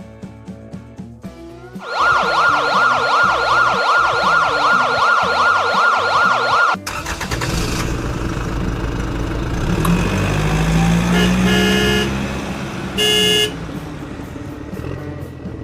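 A siren wails in a fast up-and-down yelp for about five seconds, then cuts off into vehicle engine noise with two short horn honks. Brief plucked music comes before the siren.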